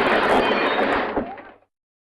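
Smash sound effect: a dense, noisy crash with scattered impacts inside it, fading away and cutting off to silence about a second and a half in.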